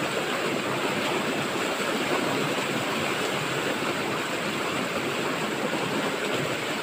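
Fast-flowing river water rushing over rocks in small rapids: a steady, even rush of noise.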